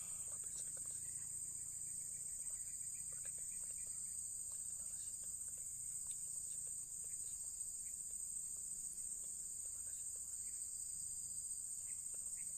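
Steady, high-pitched insect chorus that drones on without a break, with a few faint clicks.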